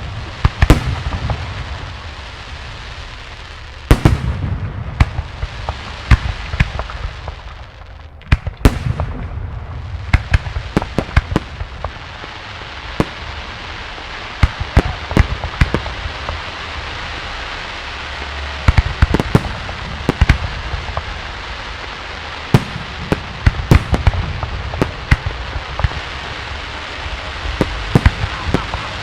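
Aerial fireworks display: shells bursting in quick, irregular succession with sharp bangs, over a continuous noisy crackle and hiss.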